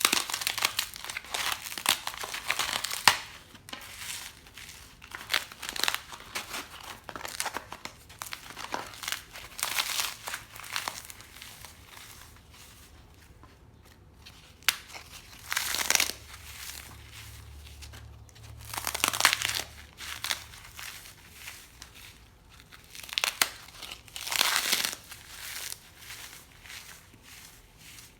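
Frozen floral foam being crushed and broken, in repeated bursts of dense crackling crunches with short quieter gaps between.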